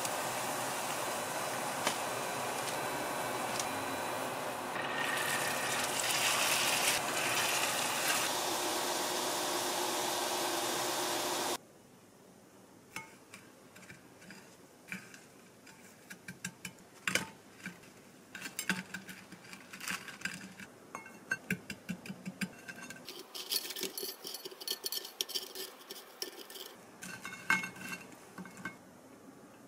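Churro batter deep-frying in hot oil, a steady sizzle that swells for a few seconds mid-way and cuts off suddenly about twelve seconds in. Then light clicks, taps and soft scrapes of fried churros being rolled in cinnamon sugar on ceramic plates.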